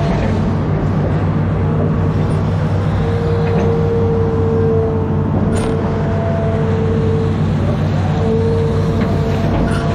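Amphibious excavator's diesel engine running steadily under load, with a mid-pitched hydraulic whine that swells and fades several times as the boom and bucket move.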